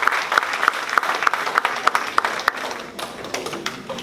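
Audience applauding after a lecture, a dense patter of many hands clapping that thins and dies away over the last second or so.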